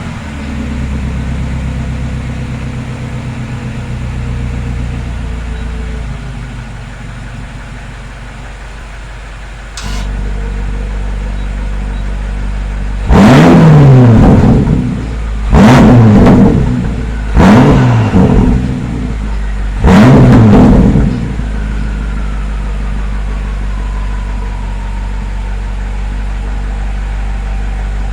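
BMW X5 M's twin-turbo V8 with an aftermarket titanium valved exhaust, idling, its low rumble getting louder about ten seconds in. It is then blipped four times in quick succession, each rev rising and falling over about a second, before settling back to idle.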